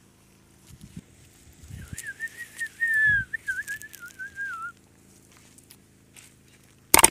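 A person whistling one wavering note that rises and dips around a single pitch for about three seconds, with a few soft low thumps. There is a short, loud crackle right at the end.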